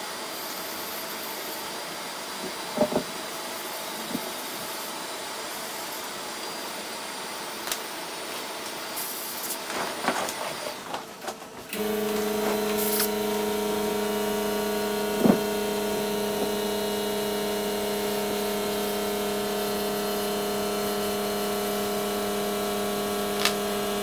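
A small electric polishing pen abrading solder on a phone motherboard, a steady gritty rubbing. About twelve seconds in this gives way to a steady low motor hum with overtones, with a few light clicks.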